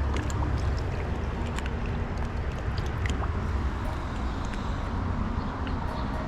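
Steady rushing of flowing creek water with a deep rumble underneath, dotted with a few faint clicks.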